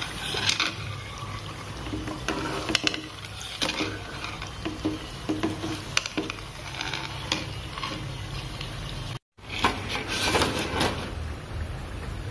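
Murukku frying in hot oil in a metal kadai, the sizzle low and settled as they finish cooking, with clinks and scrapes of a steel spoon against the pan as they are turned and lifted out. The sound cuts out briefly about nine seconds in.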